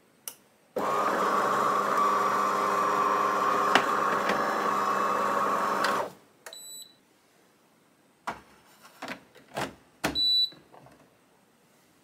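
DeLonghi ECAM Magnifica bean-to-cup coffee machine running an internal motor with a steady whir for about five seconds just after the espresso has poured, as the brew cycle finishes. Later come a few light knocks and two short high beeps.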